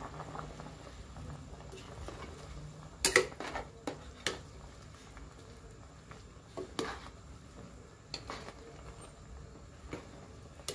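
A ladle stirring a coconut-milk stew in a pot, knocking and clinking against the pot a few times, loudest in a cluster about three seconds in, over a faint steady hum.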